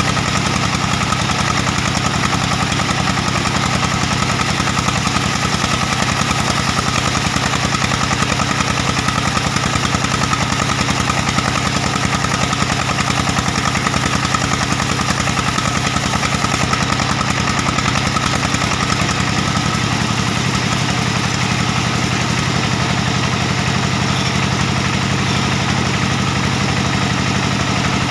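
Diesel engine of a band sawmill running steadily, with a fast, even knock throughout.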